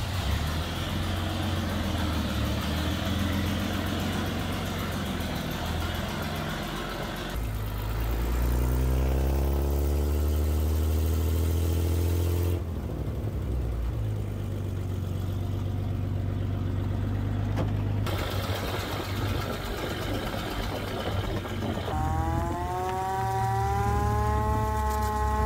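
1926 REO fire engine's engine running as the truck drives off, rising in pitch as it speeds up in gear. Near the end a hand-cranked Sterling siren winds up, its wail rising in pitch.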